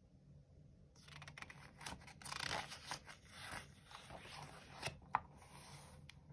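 Paper rustling and sliding as hands handle a hardcover picture book and turn a page, with a sharp tap about five seconds in.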